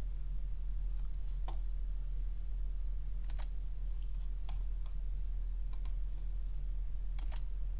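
Scattered single clicks from a computer mouse and keyboard, about seven spread irregularly, heard over a steady low hum and a faint steady high whine.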